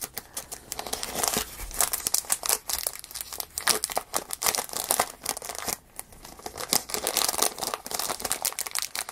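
Small laser-cut plywood parts of a wooden model kit handled and fitted together by hand while a tiny rubber band is put on: a dense run of small clicks, taps and rustles, with a short lull about six seconds in.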